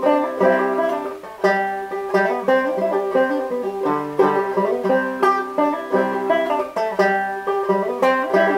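Solo banjo played clawhammer style in the key of D: a steady, rhythmic run of plucked notes, with the melody ringing over repeated drone strings.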